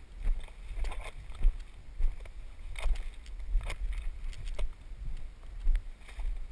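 Footsteps through leaf litter and low undergrowth: irregular crunches and swishes about once a second, over a steady low rumble from the camera being carried.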